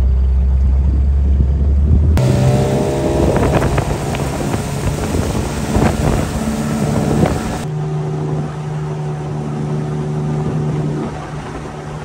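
Outboard motor of a small motorboat running at speed, with wind and rushing water. The engine becomes a steady drone about eight seconds in. A deep low hum fills the first two seconds.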